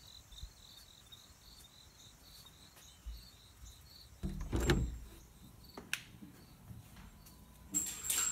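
Crickets chirping in a faint, even pulse, about four chirps a second. Then a glass patio door is worked: a loud knock and rattle about halfway through, a sharp click about a second later, and more handling and rattling near the end.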